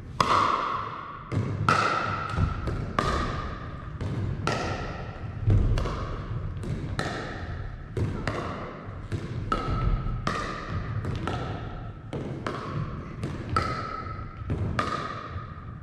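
Pickleball paddles hitting a hard plastic pickleball in a rally, a sharp pock about once or twice a second, each ringing out in the echo of a large gymnasium.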